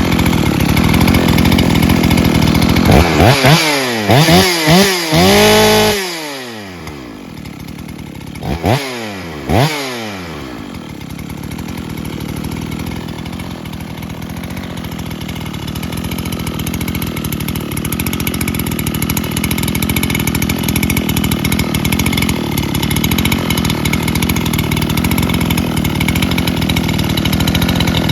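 Makita DSC-6421 two-stroke chainsaw, fitted with a 79cc Dolmar PS-7900 top end, running at a low idle and blipped up to high revs several times about three seconds in and twice more near ten seconds, dropping back to idle after each.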